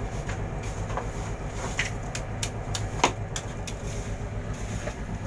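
A fishing boat's engine running with a steady low drone, with scattered sharp knocks and clatters over it, the loudest about three seconds in.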